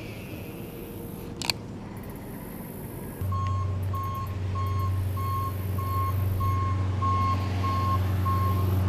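A construction vehicle backing up: about three seconds in its engine comes in loud and low, and its reverse alarm beeps steadily about twice a second. A single sharp click sounds earlier, about a second and a half in.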